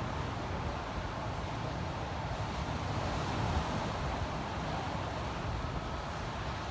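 Wind buffeting the phone's microphone over the steady rush of ocean surf breaking on the shore.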